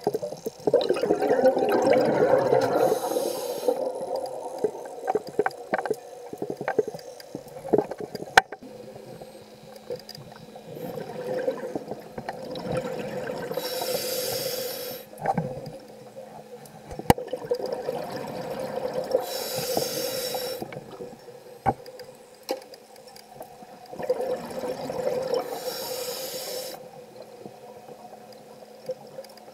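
A scuba diver breathing underwater through a regulator: a short high hiss on each inhale and rushing, bubbling exhales, about one breath every six seconds, with a few sharp clicks.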